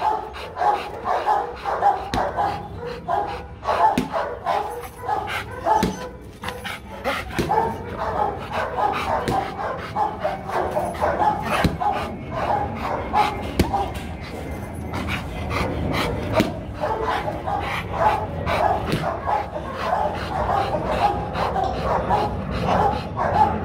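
Rottweiler barking repeatedly, with panting between the barks.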